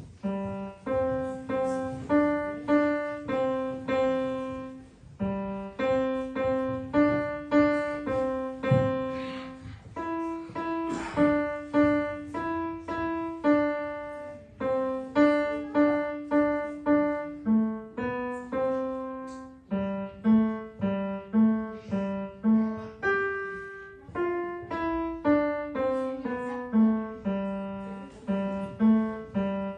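Roland digital piano played with a piano sound: a simple melody of separate notes, mostly one at a time, each struck and then fading, at a steady moderate pace.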